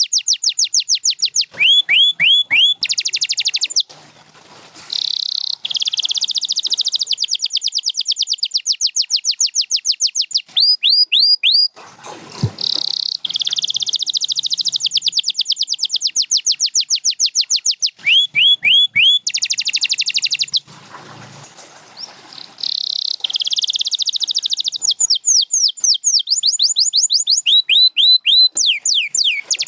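Domestic canary singing: long rolling trills of rapid, evenly repeated notes, switching from one trill to the next every few seconds. The song breaks off briefly three times.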